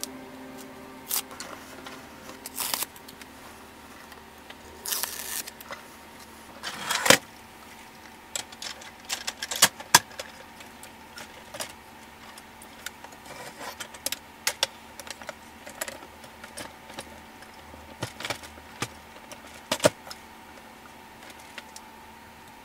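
Plastic building-brick model and track pieces being handled: scattered light clicks and taps of plastic parts, with a few short rustles.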